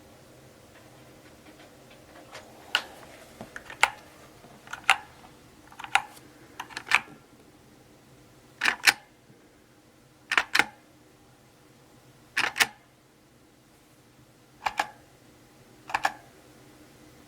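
Mechanical keyboard typed on slowly, one key at a time: sharp keystroke clicks, often a quick double click, about one every one to two seconds with quiet gaps between.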